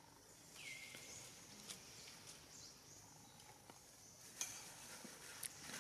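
Faint outdoor forest ambience: a steady high hiss, with a high call that drops in pitch and then holds for about a second just after the start, and a few faint clicks.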